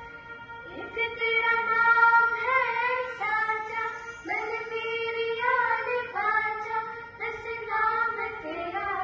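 A group of children singing a song together in held, stepping notes, accompanied by an electronic keyboard.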